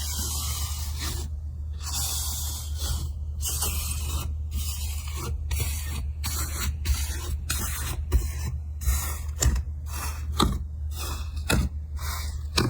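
Slime being worked by hand, a scraping, spray-like noise in stretches with short gaps between them, turning into a run of sharp clicks and pops from about two-thirds in.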